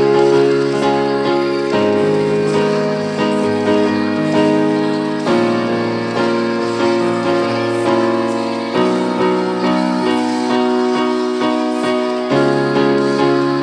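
Electronic keyboard playing slow instrumental worship music in sustained piano-like chords, the harmony changing every few seconds.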